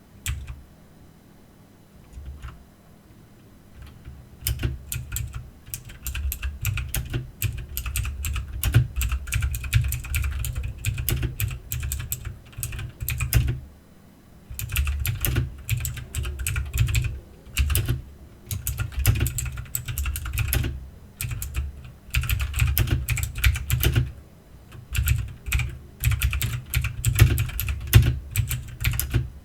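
Typing on an Aukey mechanical keyboard: fast runs of key clicks, each with a low thud, broken by short pauses. A few single keystrokes come first, before steady typing starts about four seconds in.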